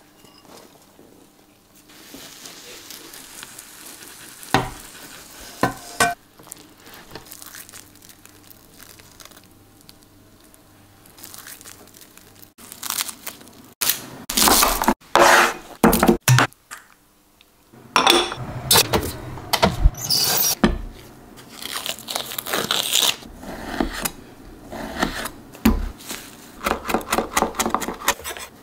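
Kitchen prep sounds: a whole garlic bulb being broken apart by hand, its papery skin crackling, then a knife chopping parsley on a wooden board in a run of quick knocks near the end.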